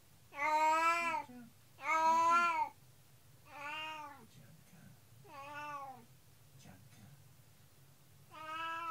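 Domestic cat meowing five times: long, drawn-out, sad cries, the first two the loudest and the later ones softer. The cat is left home alone and crying for its housemate.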